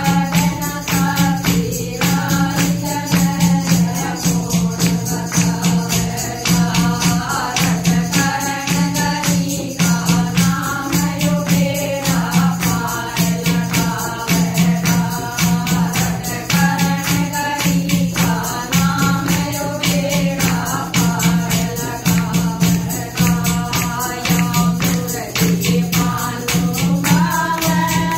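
Group of women singing a Haryanvi bhajan together to a steady beat of hand clapping, with a clay water pot (ghara) played as a drum giving a low pulse about once a second.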